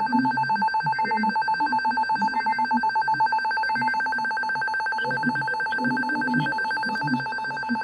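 First Alert WX150 weather radio sounding its alarm: a steady, rapidly pulsing electronic beep at two pitches. It is the radio's plain alarm beep rather than the weather warning tone the owner expected.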